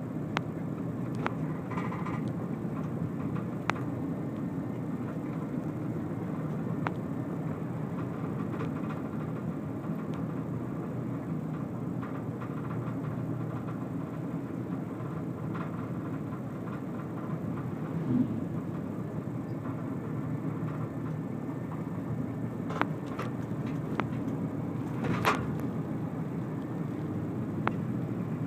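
Steady low rumble of a car driving at road speed, heard from inside the cabin, with a few scattered light clicks and ticks.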